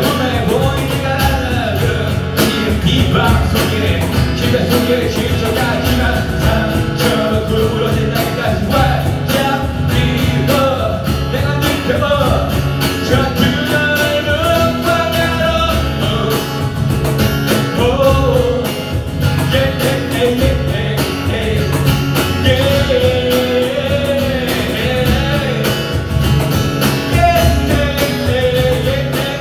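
Live acoustic song: a man singing into a microphone over a strummed acoustic guitar, with a cajón slapped by hand keeping the beat.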